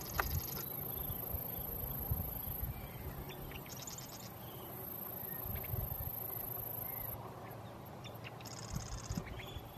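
Outdoor wetland ambience: short, high, rapidly pulsed trills from small wildlife come three times, at the start, about four seconds in, and near the end, with a few faint chirps over a low rumble.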